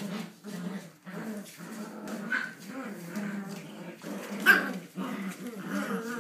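Australian Shepherd puppies and an adult Australian Shepherd play-growling in short, repeated grumbles while wrestling, with sharp puppy yips, the loudest about four and a half seconds in.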